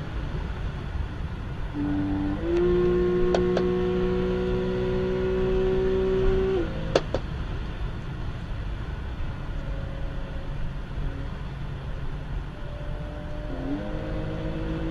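Car engine heard from inside the cabin under hard acceleration at motorway speed, over steady road and wind rumble. Its note steps up about two seconds in and climbs slowly, then drops away with a click about seven seconds in. It picks up again near the end.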